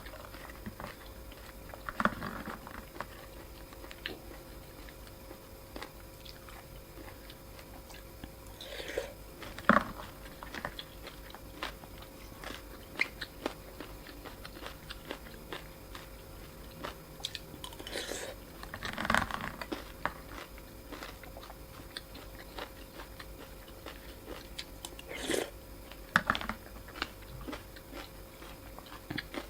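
A person eating a bowl of noodle soup close to the microphone: chewing, with small clicks and a louder burst of eating noise every several seconds.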